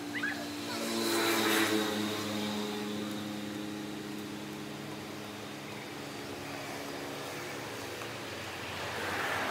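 Road traffic: a steady engine hum from passing vehicles, swelling as one goes by about a second in and again near the end.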